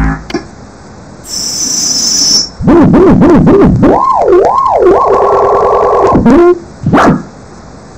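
A string of short synthesized sound effects, as previewed from the Scratch sound library. First a burst of hiss, then a warbling tone that swoops up and down repeatedly. Next comes a steady buzzing tone that glides down and stops, and a short blip near the end.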